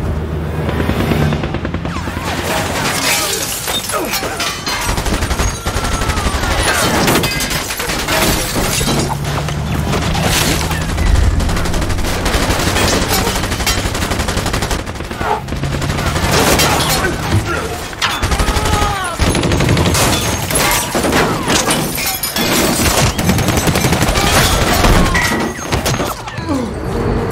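Battle sound from a film: bursts of rapid machine-gun fire and bullets striking a steel boat, dense sharp cracks over a dramatic music score.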